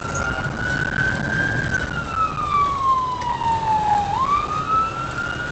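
Ambulance siren in wail mode, heard from inside the cab. It holds high, falls slowly over about two seconds, then sweeps quickly back up about four seconds in, over the low rumble of the moving ambulance.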